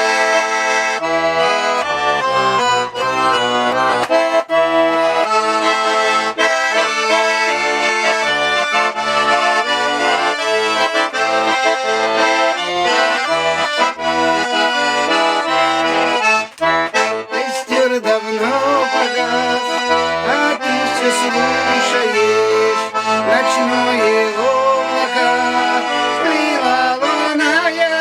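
Russian garmon (button accordion) playing an instrumental introduction: a quick melody over short, evenly repeated bass and chord notes.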